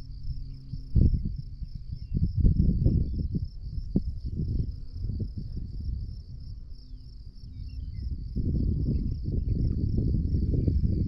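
Insects chirring in a steady, finely pulsing high trill, over louder low rumbling noise that comes and goes and grows steadier near the end.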